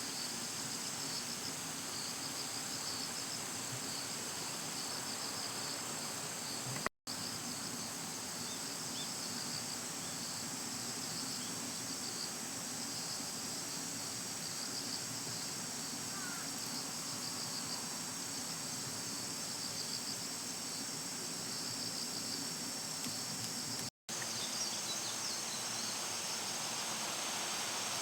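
Steady chorus of insects calling, a high pulsing trill over a higher continuous ringing. The sound cuts out completely for an instant twice, about a quarter of the way in and again near the end.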